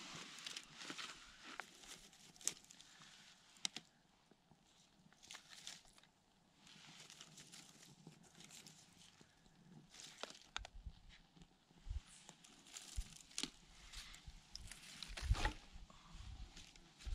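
Footsteps on a forest trail: irregular crunches and scuffs underfoot, with a few dull low thumps in the second half.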